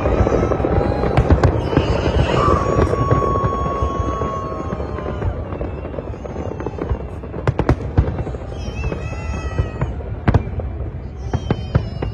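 Large aerial fireworks display: a dense crackle of bursts that thins after about five seconds into separate sharp bangs. A steady high whistle runs for a couple of seconds starting about two seconds in.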